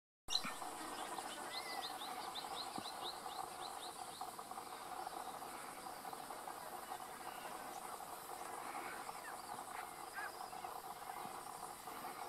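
Natural outdoor ambience: a steady insect chorus, with a bird calling a quick run of about ten short, falling notes over the first few seconds and a few brief chirps later on.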